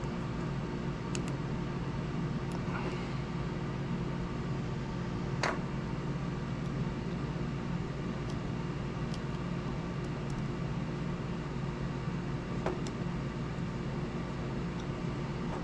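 Steady mechanical hum in a small room, with a few faint clicks and taps from small plastic parts being handled.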